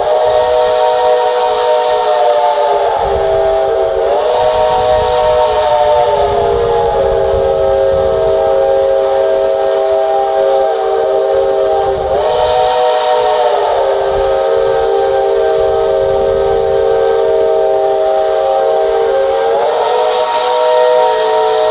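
Retro train's steam locomotive whistle blowing one long, continuous, chord-like note for over twenty seconds. The pitch wavers three times, about 3, 12 and 20 seconds in.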